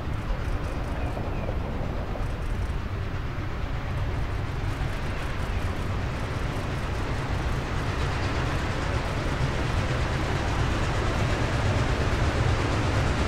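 Norfolk & Western J-class 4-8-4 steam locomotive No. 611 approaching through a tunnel: a steady rumble that grows louder toward the end as the engine draws near.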